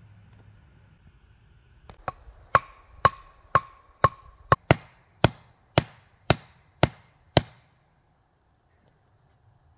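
A wooden club pounding a wooden stake into the ground: about a dozen sharp knocks, roughly two a second. The first half-dozen ring briefly after each blow.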